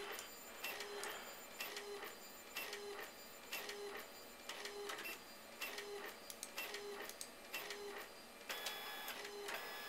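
Epson Stylus 740 inkjet printer printing a photo: the print head shuttles back and forth in a regular rhythm of passes, about one a second. Near the end the rhythm gives way to a steadier whir as the print finishes.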